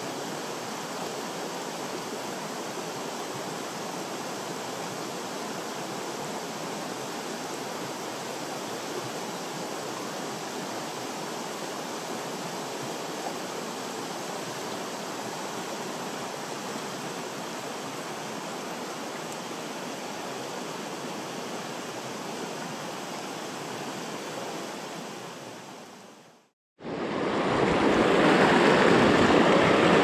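Steady rushing of a shallow, stony stream. About 25 seconds in it fades out, and after a moment of silence a louder rush of fast water over rocks comes in.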